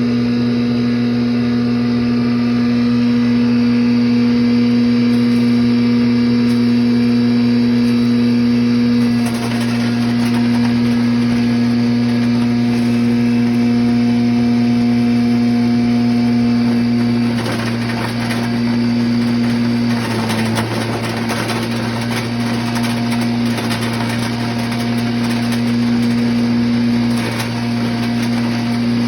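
An 8x13 pulveriser wood chipper grinding machine running steadily with a constant loud hum. It turns rougher and noisier for a few seconds about two-thirds of the way through, and its pitch shifts slightly a couple of times.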